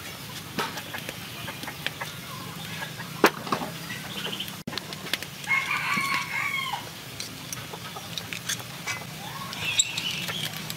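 Chickens calling, with a drawn-out, rooster-like call about halfway through. Scattered sharp clicks from a metal spatula on the wok, the loudest about three seconds in.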